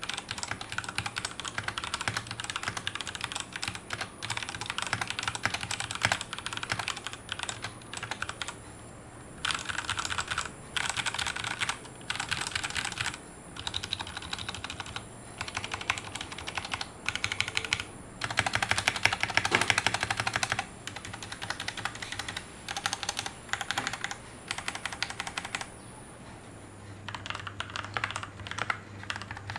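Typing on a Royal Kludge RK68 Plus mechanical keyboard with brown switches, unlubed: steady typing, then a few seconds of rapid letter mashing, then separate groups of modifier-key presses. Near the end, after a short pause, typing starts again on the same keyboard with its switches lubed with Krytox 205 g0 and its plate-mounted stabilizers clipped and lubed.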